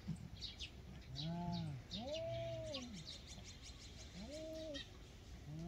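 Two feral cats in a fighting standoff giving low, drawn-out yowls that rise and fall, four short ones in a row. Small birds chirp faintly.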